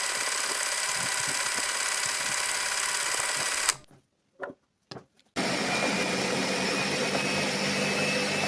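Electric blender motor running as it blends chopped onion and ginger. It cuts off abruptly a little under four seconds in, two faint knocks follow, and it starts again about a second and a half later with a faint, slowly rising whine.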